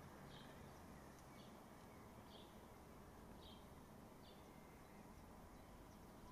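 Near silence: faint outdoor background hiss with a faint short bird chirp repeating about once a second.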